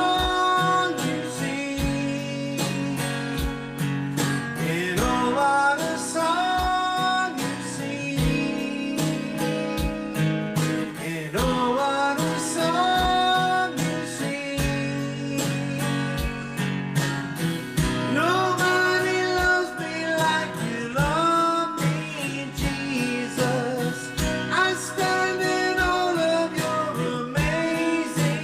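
Country-style gospel song with strummed acoustic guitar and a steady low beat about once a second, a melody line gliding up and down over it.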